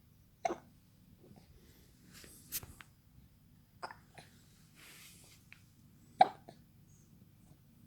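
A three-month-old baby hiccupping: three short, sharp hiccups about three seconds apart, the last one the loudest.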